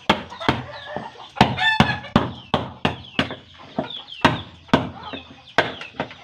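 Steady run of sharp blows on wood, about two to three a second, as wooden pegs are hammered in during wooden boat building. Chickens cluck in the background, with one longer call a little under two seconds in.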